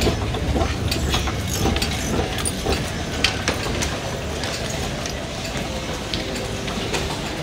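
Ambience of a busy underground railway station: a steady low rumble with scattered clicks and footsteps.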